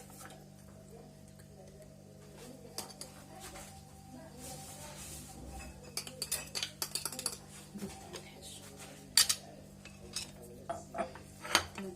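A spoon clinking and scraping against a jar and bowl as a thick ground paste is spooned in, in scattered short knocks that come thicker in the second half.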